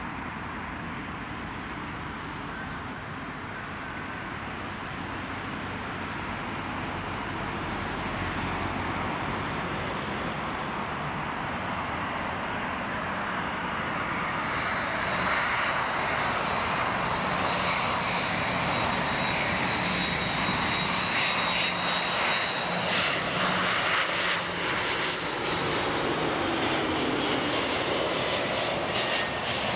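Airbus A330-300 twin-engine jetliner on final approach, its engines a continuous rush that grows steadily louder as it comes near and passes. A high steady whine from the engines joins about halfway through and is strongest near the end.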